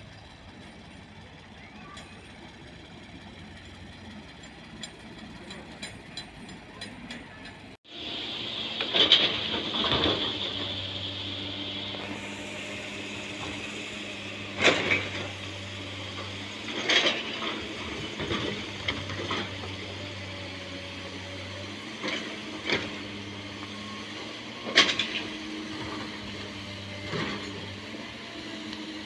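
Heavy construction machinery and trucks: diesel engines running steadily, with sharp metallic clanks and knocks every few seconds. The first few seconds are quieter, with faint clicking.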